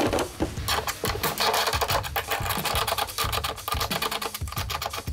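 Hand ratchet with a 19mm socket clicking in a rapid, dense run as the stationary bolt is backed out of a steel motor mount. The clicking starts about a second in.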